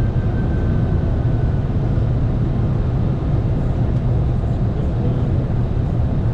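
Steady low rumble of flight-deck noise in a Boeing 747-400ERF cargo jet on approach, airflow and engine noise heard from inside the cockpit.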